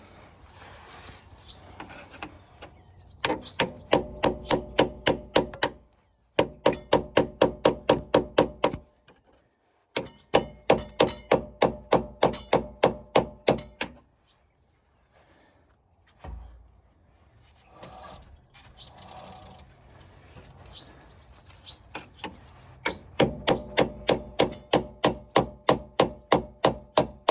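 Heavy framing hammer striking a flathead screwdriver against a seized CV joint housing to drive it out of the power transfer unit: runs of rapid metallic blows, about four a second, in four bursts with pauses between.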